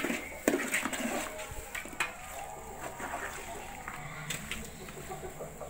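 Metal ladle stirring chicken masala in a large metal pot, with a few separate clinks and scrapes of the ladle against the pot.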